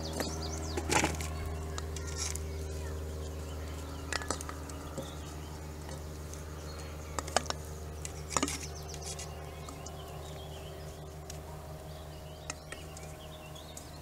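Wooden spoon scraping and knocking against a stainless steel mixing bowl as diced potatoes are spooned out into a cast iron skillet and a foil pie plate. A few sharp knocks and scrapes stand out over a steady low hum.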